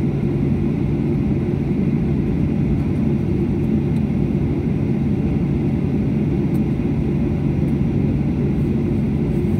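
Steady cabin noise of an airliner taxiing: engine and rolling rumble with a steady low hum.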